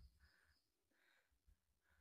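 Near silence, with only a few faint, soft, short sounds.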